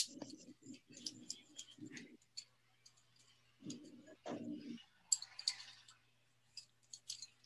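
Faint, irregular scratches and clicks of a coloured pencil drawing on paper, heard through a video call.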